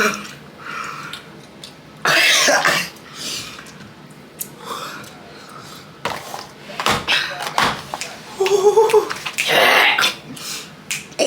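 People coughing, clearing their throats and blowing out sharp breaths in several bursts, a reaction to the burn of an extremely spicy gummy bear.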